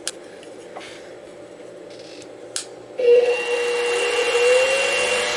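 A couple of sharp clicks, then about three seconds in the mini mill's motor and spindle start up and run with a steady whine. One tone rises briefly as it comes up to speed, ready for spot-drilling the aluminium block.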